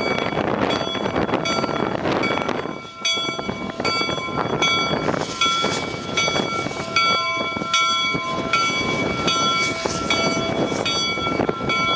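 Replica Union Pacific No. 119 coal-burning 4-4-0 steam locomotive pulling away slowly. Steam hisses loudly for the first few seconds, then its bell rings in steady strokes about every 0.7 s over the engine noise.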